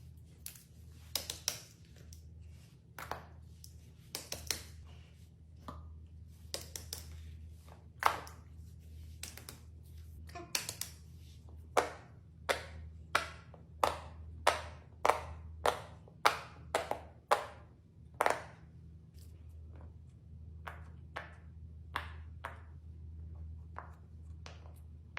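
Silicone pop-it fidget toy bubbles being pressed: a string of sharp pops, scattered at first, then an even run of about two a second in the middle, over a steady low hum.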